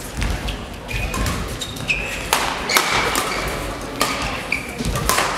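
Badminton doubles rally: sharp racket strikes on the shuttlecock come every second or so, with short high squeaks of court shoes on the hall floor between them.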